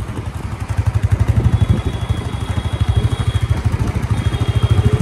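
Motorcycle riding along a street at speed: engine and road noise under a heavy, fluttering rumble of wind on the microphone.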